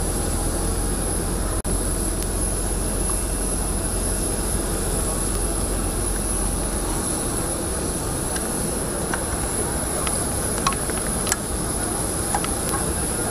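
Jet aircraft turbine running steadily: an airy rush with a constant high-pitched whine. The low rumble under it eases about seven seconds in, and a few brief clicks come near the end.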